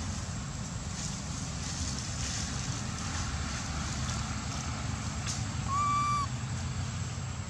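Steady low rumble of wind on the microphone. Near the end comes one short, high-pitched call, about half a second long, that arches slightly in pitch.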